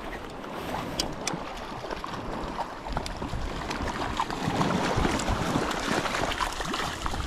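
Sea water washing and lapping against the rocky shore, with wind buffeting the microphone and a few sharp clicks in the first second and a half.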